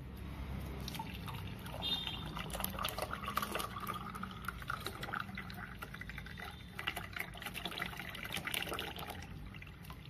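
Orange juice poured in a thin stream into a drinking glass, splashing and frothing as it fills, with a steady patter of small drips and splashes.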